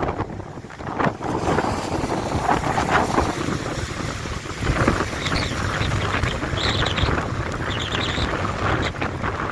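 Strong gusting wind buffeting the microphone, with a heavy low rumble throughout. A few short high-pitched squeaks come through from about five seconds in.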